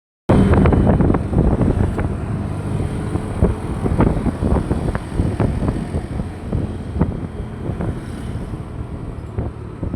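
A vehicle on the move with wind buffeting the microphone: a heavy low rumble with frequent short knocks and rattles.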